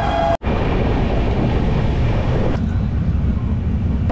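Vande Bharat Express horn ending on a lowered pitch as the train passes, cut off by a brief dropout. Then the steady loud rumble and rush of the passing train.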